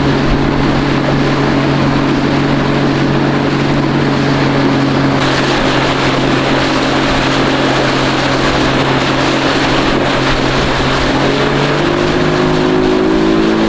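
Yamaha 50 hp outboard motor running under way, a steady engine drone under the rush of water and wind. The rushing hiss grows about five seconds in, and the engine note shifts near the end.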